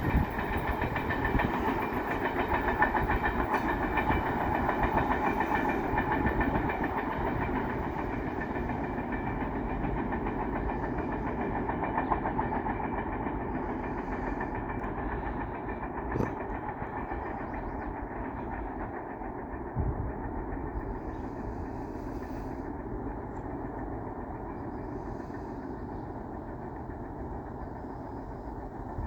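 Freight train rolling past on the rails, a steady rumble that slowly fades, with a few short knocks from the cars.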